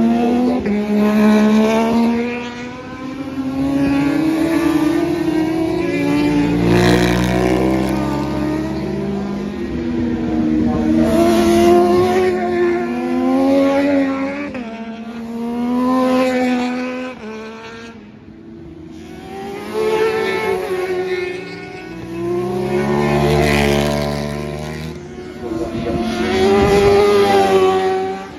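Road-racing motorcycles passing one after another, each engine note rising and falling in pitch as the bike accelerates and backs off, swelling louder with every pass.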